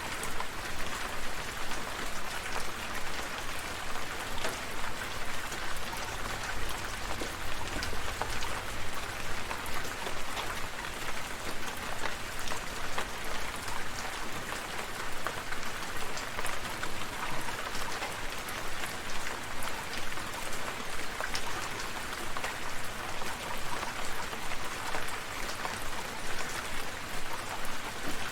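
Steady rainfall, with many individual drops pattering on surfaces.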